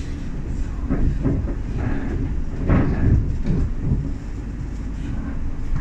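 Class 710 electric multiple unit running along the line, heard from inside the carriage: a steady low rumble from wheels on track, with a few irregular knocks and clatters, the loudest about three seconds in.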